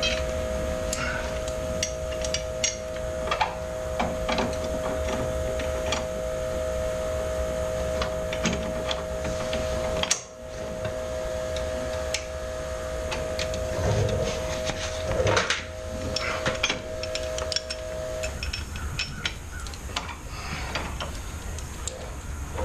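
Irregular metal clanks and knocks of steel three-point hitch parts and pins being handled and fitted on a Kubota BX25 tractor, over a steady low hum. The hum breaks off briefly about halfway through.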